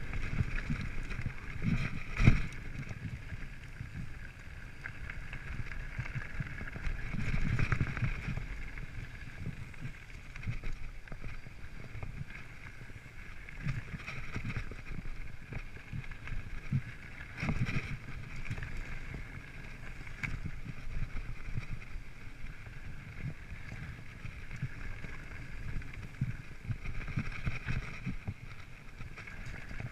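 Mountain bike riding fast down a dirt trail: tyres rumbling over the ground and the bike rattling and knocking over bumps, the sharpest knock about two seconds in.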